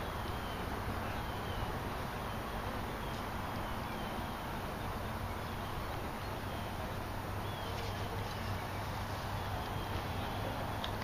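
Steady outdoor background hiss with faint short bird chirps repeating about once a second.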